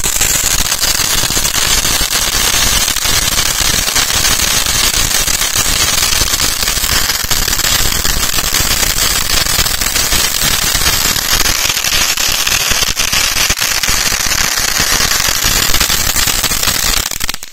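Flower-pot fountain firework spraying sparks with a steady, loud hiss and crackle. It dies away just before the end as the fountain burns out.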